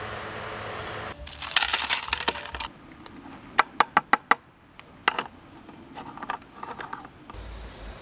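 A cordless work fan runs with a steady whir for about a second. Then come metal clinks and taps from handling a stovetop moka pot and its coffee-filled filter basket: a quick rattle of small clinks, four sharp taps in quick succession, one more tap and a few lighter knocks. A low steady rumble starts near the end.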